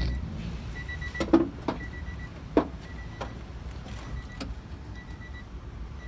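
A car's electronic warning chime beeping steadily, a high tone repeating about once a second, with a few sharp knocks and clacks from work on the car, the loudest about a second and two and a half seconds in, over a low rumble.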